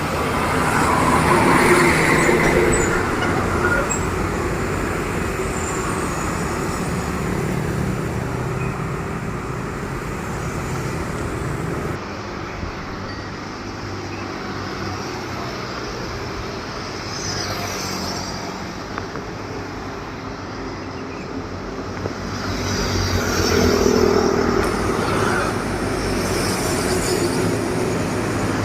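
Heavy trucks passing on a road, engine and tyre noise swelling as one goes by about two seconds in and another near the end.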